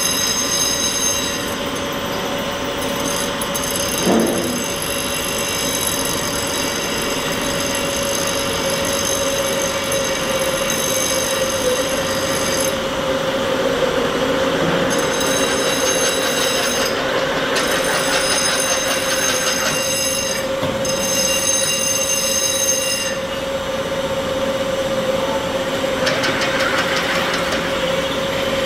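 Double-spindle hydraulic-feed drill machine drilling two metal workpieces at once: a steady mechanical run with a held metallic squeal from the cutting, and one knock about four seconds in.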